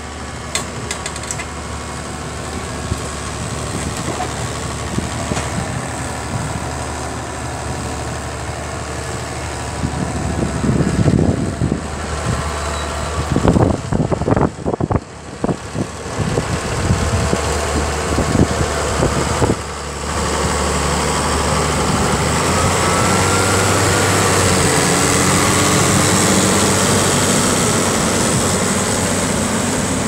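Massey Ferguson 6480's six-cylinder diesel engine working under load as the tractor pulls a five-furrow reversible plough through the soil, getting louder in the last third as it comes close and passes. Loud low rumbles break in about halfway through.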